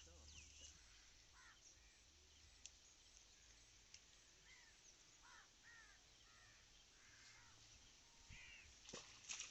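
Faint bird calls outdoors: short arched notes in small groups, repeated a few times. A couple of sharp clicks come near the end.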